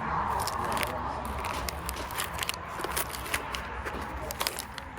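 Room hubbub of distant voices murmuring, with scattered small clicks and knocks.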